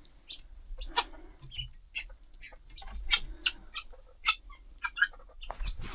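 Chickens clucking in the coop, a run of short, irregular clucks and pecking clicks.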